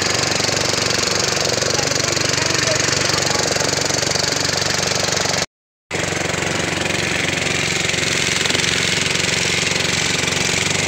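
A passenger motorboat's engine running steadily under a constant rush of water and wind against the hull. The sound cuts out completely for a moment about halfway through.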